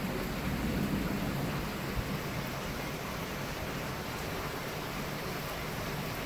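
Steady rain during a thunderstorm, with a low rumble of thunder swelling in the first second or two.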